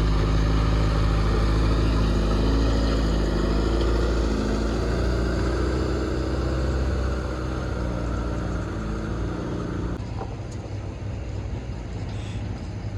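Heavy construction machine's diesel engine running close by, steady and loud. It eases off after about seven seconds, then drops suddenly about ten seconds in to a quieter rumble.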